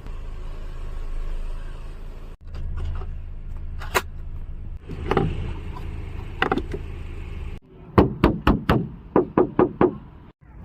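Sounds of a 2023 Audi Q3: a steady low hum, broken by an edit, with a few single clicks. Then, near the end, the hum stops and two quick runs of sharp clicks follow, about five a second.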